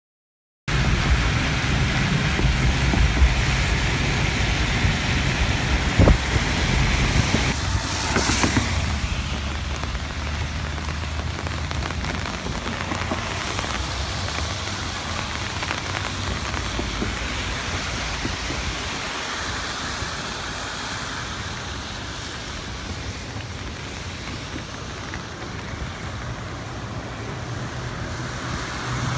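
Steady rush of floodwater pouring over a breached concrete spillway, mixed with rain, starting abruptly just under a second in. A low hum sits underneath for the first several seconds, and there is a single sharp knock about six seconds in.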